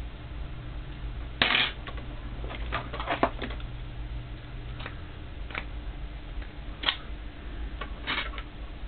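Irregular light clicks, taps and short scrapes of small hard objects being handled on a workbench during soldering, over a steady low hum.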